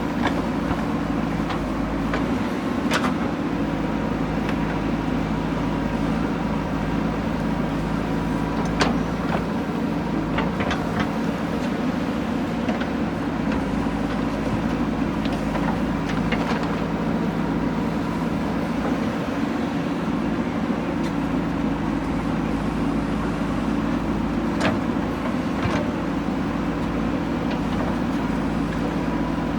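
JCB 3DX backhoe loader's diesel engine running steadily under digging load, with a thin steady whine over it. Sharp knocks sound now and then, about a handful of times.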